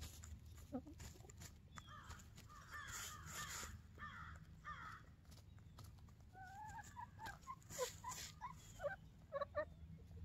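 Hens calling softly in short clustered notes, with small ticks and rustles of scratching and pecking in hay.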